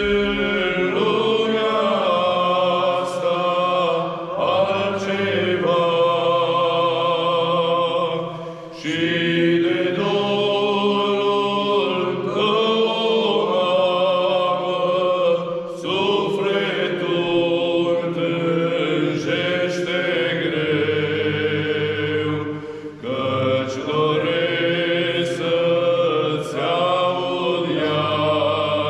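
Orthodox priests chanting a hymn together in long sung phrases, with brief pauses between phrases every few seconds.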